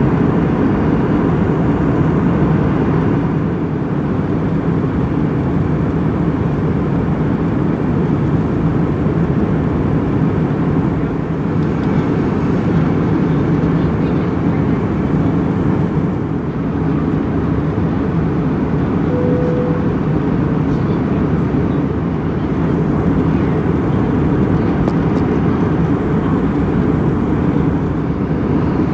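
Steady low rush of an Airbus A320-200's engines and airflow heard inside the passenger cabin at cruise.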